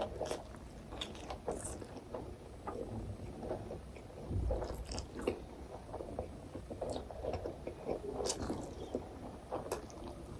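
A person eating close to the microphone: soft bites, chewing and small wet mouth clicks, with a slightly louder bite about four and a half seconds in.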